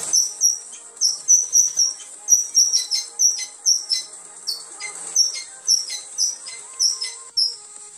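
Rapid, high-pitched bird-like chirping, short notes dipping slightly in pitch at about three a second, over faint music.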